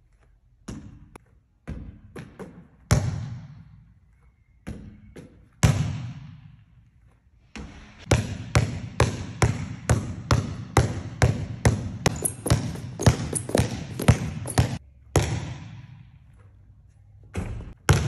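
A basketball bouncing on a gym floor, with a few scattered bounces and two loud hits that echo through the hall as the ball strikes the rim on warm-up shots. About eight seconds in, fast steady dribbling starts, about three bounces a second, and stops about fifteen seconds in; two more bounces come near the end.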